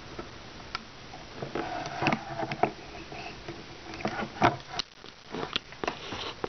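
Irregular small clicks, taps and rubs of rubber bands and a hook being worked over the plastic pegs of a Rainbow Loom, with a hand brushing close against the camera.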